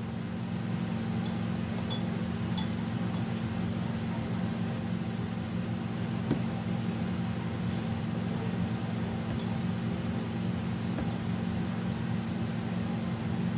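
Steady low mechanical hum, like a running fan, with about eight light, sharp clinks of glass bangles and hand against the glass bowl as rice-flour dough is kneaded.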